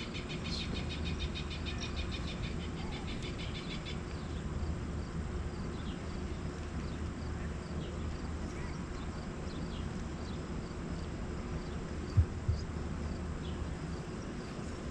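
A bird gives a rapid, evenly pulsed trill for the first four seconds or so, then a few short chirps, over a steady low outdoor background rumble. Two sharp thumps come close together about twelve seconds in.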